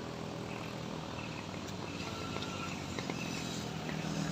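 A vehicle engine running steadily at an even, moderate level, with a few faint low steady tones.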